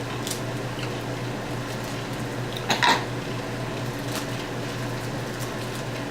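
Steady low hum of room background noise, with a few faint clicks and one short, loud, noisy burst about three seconds in.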